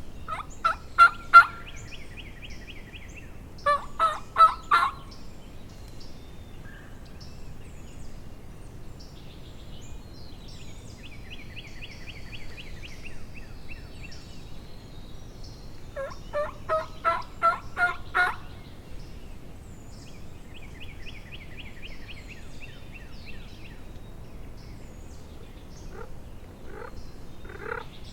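A wild turkey gobbler gobbling three times: about half a second in, around four seconds in, and a longer gobble around sixteen seconds in. Between the gobbles a small songbird sings a high, even trill three times.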